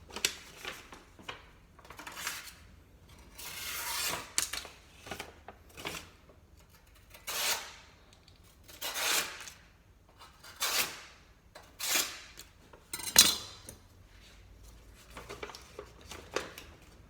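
A knife blade drawn in a dozen or so short scraping strokes across a sharpening tool, steel rasping on the sharpener about once every second or two.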